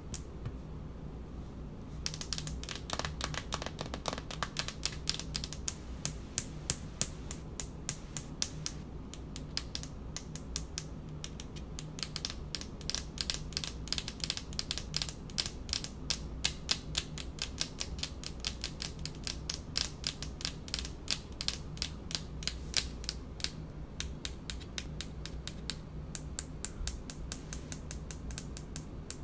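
Long polished fingernails tapping quickly and irregularly on a hard speckled countertop, several sharp clicks a second. The tapping is sparse for the first couple of seconds, then runs on densely.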